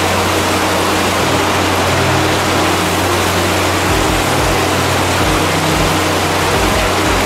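Chilli sambal frying in a steel wok: a loud, steady sizzle with a low hum underneath.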